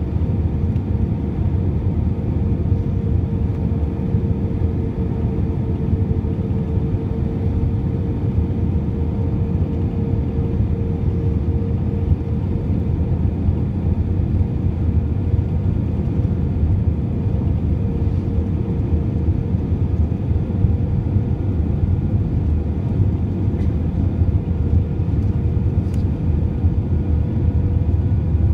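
Cabin noise inside an Airbus A320 descending on approach: a steady rumble of its IAE V2500 engines and the airflow, with a steady hum-like tone running through it.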